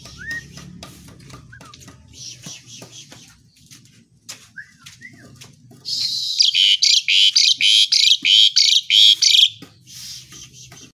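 Asian pied starling (jalak suren) calling: a few short whistled notes, then from about six seconds in, a loud run of harsh, rapidly repeated notes, about four a second, lasting some three and a half seconds.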